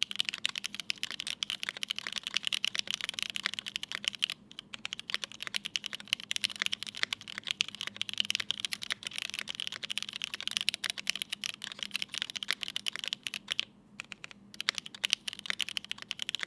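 Fast continuous typing on a Keycult No.1/65 mechanical keyboard with lubed linear Cherry MX Black switches in an aluminium plate and GMK keycaps, a dense stream of key clacks with brief pauses about four seconds in and near the end.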